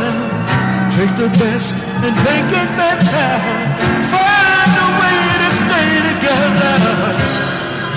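A pop song playing: a singer's voice over a band, with long held notes in the middle.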